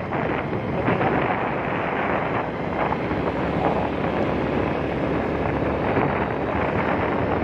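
Steady wind rushing over the microphone of a moving Vespa scooter, with the scooter's running and road noise beneath it.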